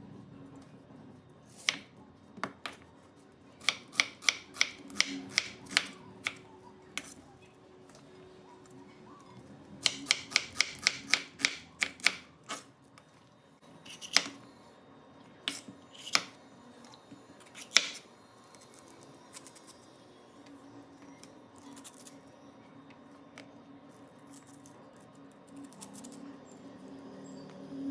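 Chef's knife cutting through onion and red bell pepper onto a wooden cutting board: two quick runs of sharp taps at about four a second, then scattered single cuts.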